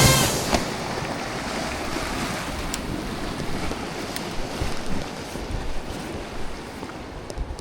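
Sea waves washing against shore rocks, with wind buffeting the microphone; a loud rush of noise at the very start fades within half a second.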